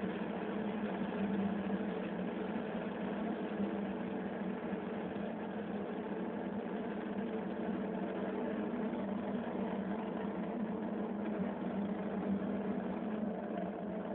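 Steady roar of an Ariane 5 rocket climbing after liftoff, with its Vulcain core engine and two solid boosters burning. It is heard through a television speaker.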